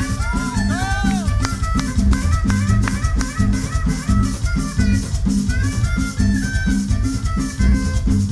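Live salsa-style tropical orchestra playing: a trumpet melody in rising-and-falling phrases over congas, bass and a steady, driving beat.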